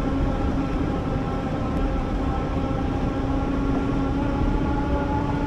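Electric bike's motor whining at a steady pitch while riding, over a low rumbling noise of wind and tyres.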